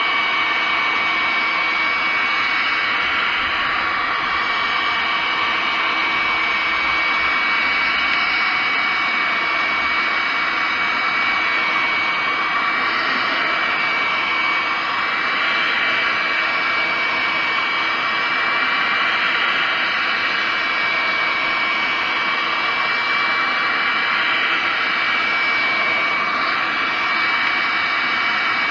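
Electric heat gun running steadily, its fan blowing hot air into an aluminium crankcase: an even rush of air with a constant high whine.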